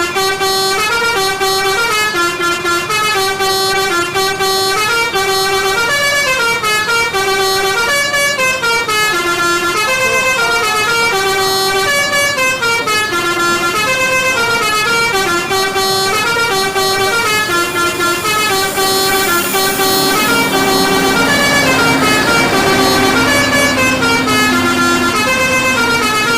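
Basuri V3 telolet multi-tone bus horn playing a fast melody, one note stepping straight into the next with hardly a break. From about 18 seconds in, a rushing noise and a low steady tone join beneath the melody.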